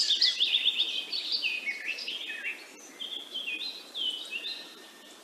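Birds calling: a rapid series of chirping notes that step downward in pitch, loudest at the start, then fewer, shorter whistled notes over a steady background hiss.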